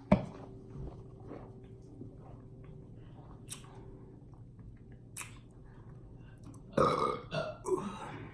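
A woman's loud burp near the end, coming up in two or three pushes, brought on by drinking soda. A sharp knock right at the start and a couple of faint clicks in between.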